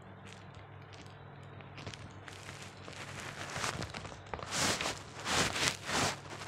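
Rustling and scratching as a small squirrel scrambles over fabric, growing louder after a couple of seconds into three or four loud bursts of rustle near the end, over a low steady hum.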